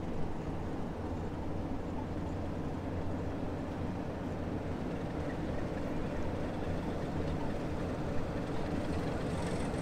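Diesel-electric locomotive NSU 52's Sulzer diesel engine running steadily at low power as the locomotive creeps toward the carriage, with a single faint knock about eight seconds in.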